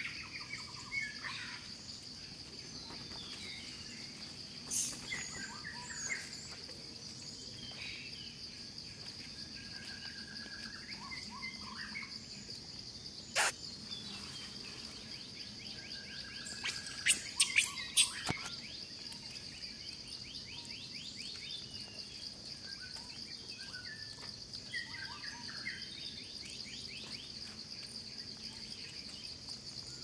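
Forest ambience: a steady, high-pitched insect drone with scattered bird chirps and calls. A single sharp click comes a little before halfway, and a brief burst of loud, shrill calls comes just after halfway.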